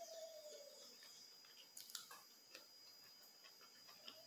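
Near silence with a few faint clicks and soft chewing from someone eating: a metal spoon touching a plastic plate. A faint steady tone fades out in the first half second.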